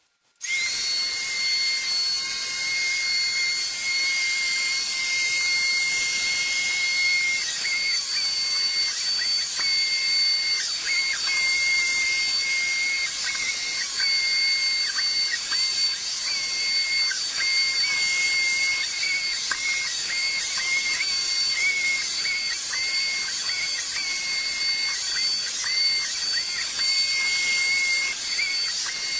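Electrolux Trilobite 3.0 robot vacuum running, its audio sped up sixteen-fold with the time lapse so that it comes out as a steady high whine over hiss. The whine dips briefly in pitch every few seconds. It starts abruptly just after the beginning.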